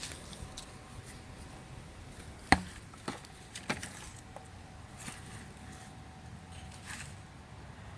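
Digging tool chopping into root-filled soil: a few sharp strikes, the loudest about two and a half seconds in, the rest lighter and spaced irregularly.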